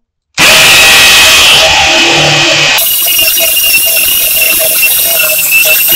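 DeWALT DCD991B cordless hammer drill in hammer-drill mode boring a half-inch masonry bit into a concrete block. It is a loud, steady whining, hammering sound that starts abruptly about half a second in.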